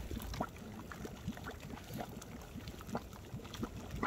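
Natural hot spring welling up from the ground into a shallow rock pool, with many small irregular gurgles and pops of water bubbling at the surface.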